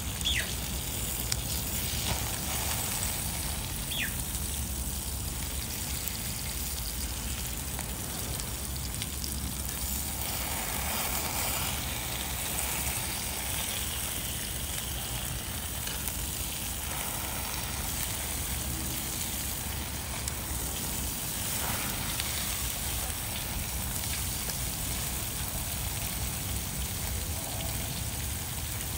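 Food sizzling on the hot top plate of a small wood-burning camp stove, with the fire burning and a few sharp pops; a steady low rumble runs underneath.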